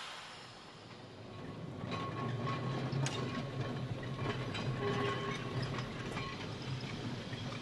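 Manx Electric Railway tramcar No. 1 rolling slowly past over pointwork and curved track: its wheels click and knock over rail joints and crossings above a low hum, with a faint steady whine through the middle. A hiss fades away at the start, and the running sound builds up about a second and a half in.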